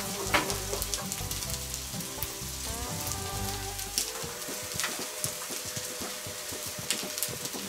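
Turkey steaks and mushrooms sizzling over a charcoal grill: a steady fine crackle with occasional sharp pops.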